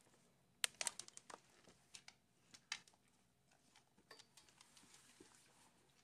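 A quick run of sharp clicks about a second in, then two more single clicks and faint scattered ticks and taps, the sounds of clicker training as a dog works at a wall-mounted doorbell button.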